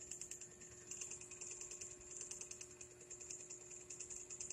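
Night insects chirping: a faint, rapid, high-pitched pulsing that runs on evenly, over a low steady hum.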